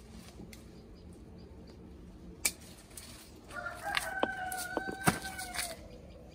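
A rooster crows once, a single drawn-out call of about two seconds starting about halfway through. A few sharp clicks and some rustling sound through it.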